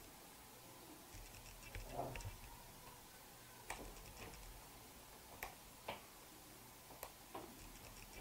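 Scattered light clicks and taps of hands turning and pressing on a Canon SL2 DSLR's body, several at irregular intervals over a quiet background.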